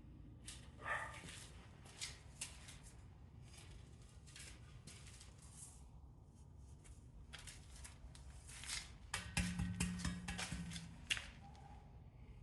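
Handling noise: scattered clicks and rustles as objects are picked up and moved about, busier about nine seconds in, with a short low hum there lasting about a second and a half.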